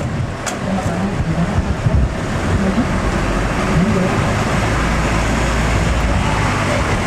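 Tour bus engines and road noise at close range: a rushing traffic noise that swells about two and a half seconds in into a steady, heavy low rumble.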